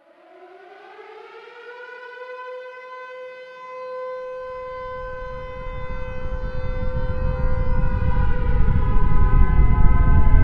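Air raid siren winding up to a steady wail, joined near the end by a second, wavering tornado siren. A low rumble starts about halfway through and grows steadily louder.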